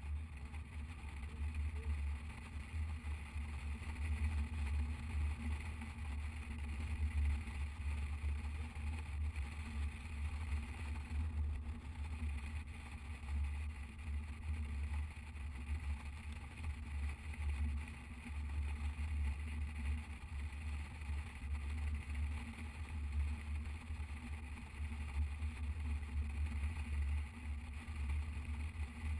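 Motorcycle riding along at a steady speed: engine running and wind rushing past the microphone, a steady low rumble throughout.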